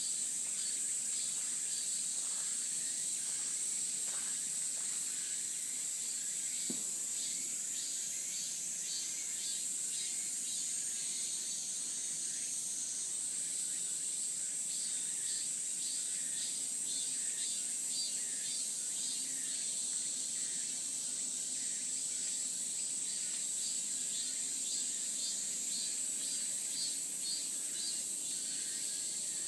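Cicadas singing: a steady, high-pitched buzz, with a second, pulsing call coming and going over it.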